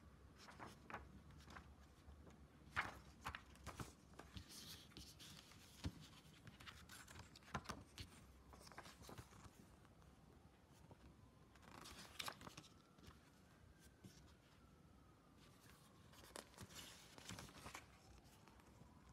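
Faint clicks, taps and rustles of a product box and its packaging being handled and opened. About halfway through, a faint siren joins in, slowly rising and falling.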